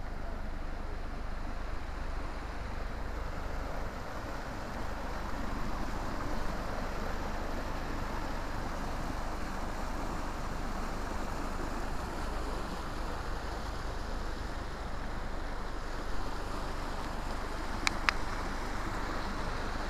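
Mountain stream rushing and splashing over boulders, a steady even noise. Two sharp clicks close together near the end.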